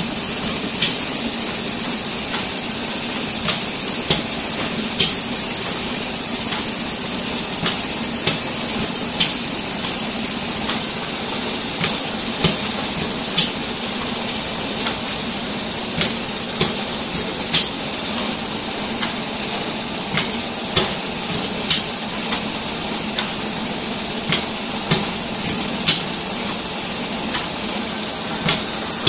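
Pneumatic spot-welding indexing machine running automatically. Its cylinders, welding head and rotary table give sharp clacks in repeating groups of three or four, about every four seconds, over a steady hiss.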